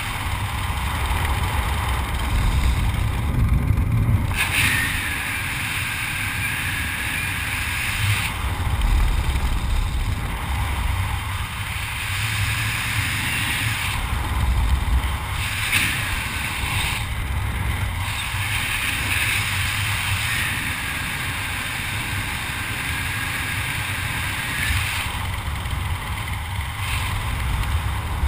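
Wind rushing over a jumper-mounted camera's microphone during a parachute canopy descent: a steady low rumbling buffet, with a higher whistling hiss that comes and goes several times.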